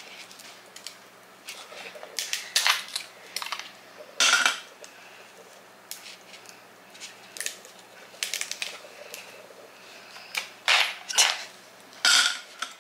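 Ice being pushed out of a plastic ice tray with a silicone backing and dropped into a glass jar: an uneven string of sharp clicks and clinks.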